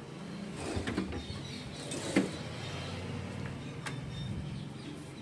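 Pull-out kitchen drawers with steel wire baskets sliding shut on their runners. A sharp knock about two seconds in is the loudest sound, and a lighter click comes near four seconds.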